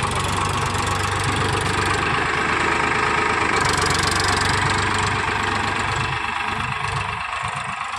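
Diesel tractor engine running steadily with an even clatter, easing off a little near the end.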